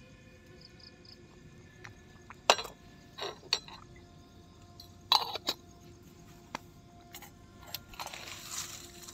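Small stainless steel camping cup and its metal lid clinking as they are handled and set down on a wooden board: a few sharp clinks, the loudest about two and a half seconds in and another pair around five seconds. Soft rustling near the end.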